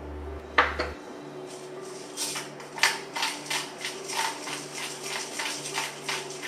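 Pepper mill grinding over a bowl in quick, repeated gritty crunches, several a second, after a single sharp knock near the start.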